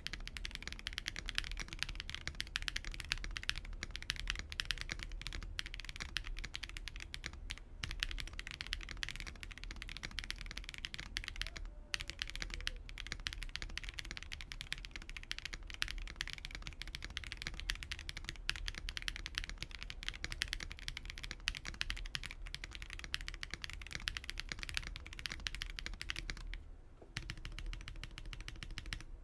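GAS67 65% mechanical keyboard being typed on fast and continuously: a dense run of clacky keystrokes, the case damped only by its stock foam sheet and silicone dampener. The typing pauses briefly near the end.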